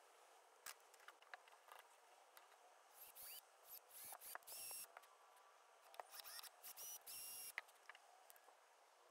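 A few light clicks of plastic parts being handled, then a cordless drill/driver run in about eight short bursts, each whining up in pitch and holding steady for a moment, as screws are driven into a 3D printed plastic laser tube holder.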